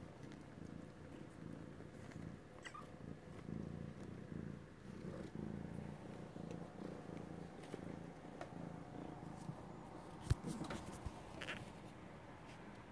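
Siamese cat purring as it is petted, a low rhythmic rumble throughout, with a single sharp click about ten seconds in.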